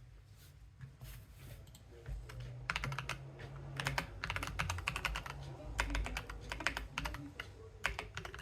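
Typing on an Akko 3087 v2 mechanical keyboard: a few scattered keystrokes, then fast runs of key clacks from about three seconds in.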